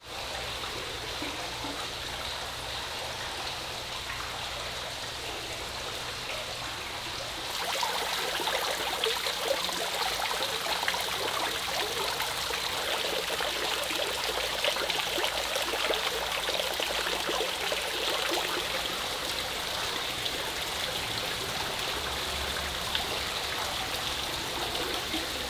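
Water from a tiered indoor fountain splashing and trickling steadily into its stone basin. It grows louder and brighter about seven and a half seconds in.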